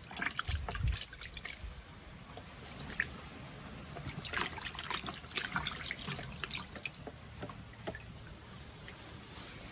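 Water trickling and splashing in irregular small spills as snake tomato (snake gourd) is washed by hand, the splashing busiest in the middle.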